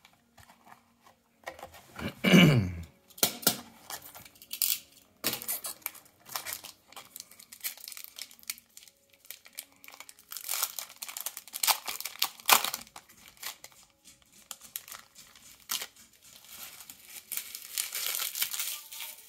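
Foil wrapper of a trading-card pack crinkling and tearing open in irregular bursts of rustling, with a short falling squeak about two seconds in.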